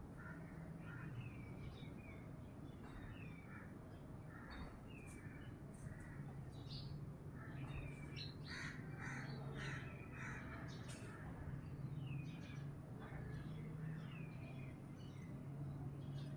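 Birds calling, many short calls, some falling in pitch, coming thickest about halfway through, over a steady low hum.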